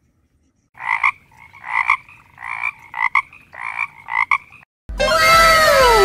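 Frog croaking: a run of six or so short croaks, one about every 0.7 seconds. Music with falling tones comes in near the end.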